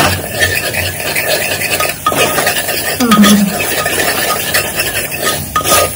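Steel ladle stirring a thick tomato-and-masala mixture in an aluminium pressure-cooker pot, scraping and clinking against the metal while the masala sizzles in the hot oil.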